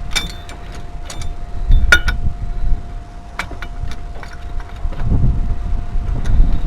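Metal parts and tools being handled, with several sharp clinks and knocks, the loudest about two seconds in. Wind rumbles on the microphone throughout, and a faint steady tone runs underneath.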